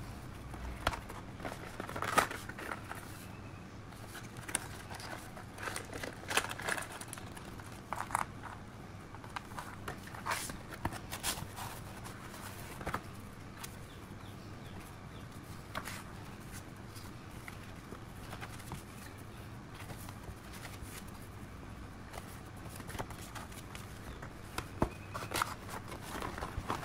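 Hands handling a cardboard box of Faber-Castell Connector felt-tip pens and paper greeting cards: irregular taps, knocks and rustles of card and paper, with the sharpest knocks about two seconds in and near the end.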